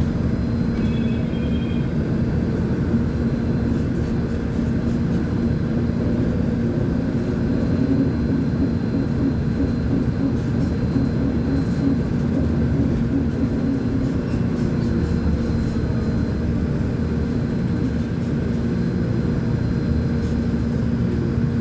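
Volvo B10M articulated bus's diesel engine running steadily, with a steady pitched hum through it. A brief high double beep sounds about a second in.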